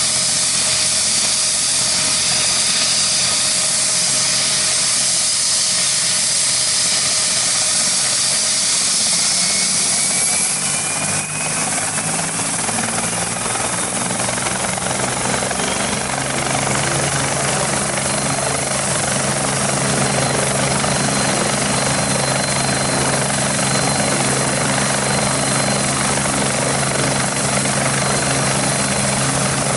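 Ansat helicopter's twin turboshaft engines and rotors running on the ground: a loud turbine hiss and whine, then a deeper steady hum builds up about twelve seconds in and holds as the helicopter runs up for takeoff.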